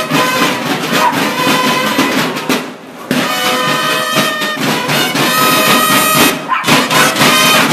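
Marching band of field drums and brass horns playing in the street, drums beating under held horn notes. The band breaks off briefly about three seconds in, then comes back in together.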